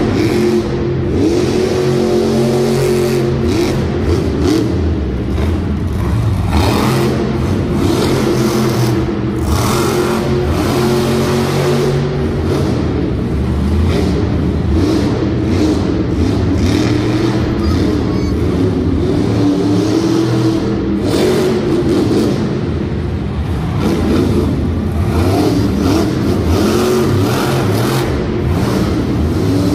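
Monster truck's supercharged V8 engine revving hard, its pitch rising and falling over and over, with occasional sharper knocks.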